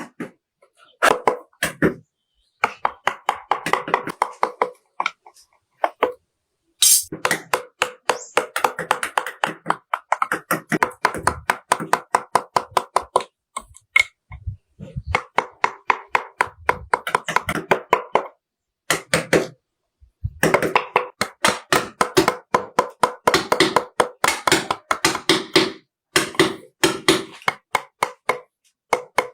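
Wood-carving chisel struck by a mallet in quick runs of taps, about five a second, cutting into wood, with short pauses between runs.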